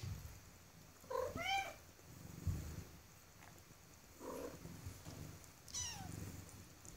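Young Bengal kittens mewing: three short high-pitched mews, about a second in, around four seconds in, and a last one near the end that falls steeply in pitch.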